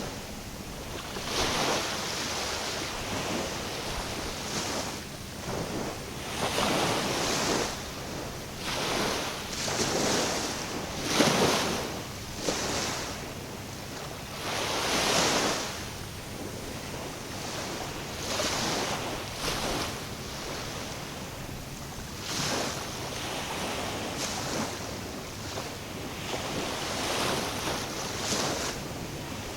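Waves washing and breaking against the shore, swelling every few seconds, with wind buffeting the microphone.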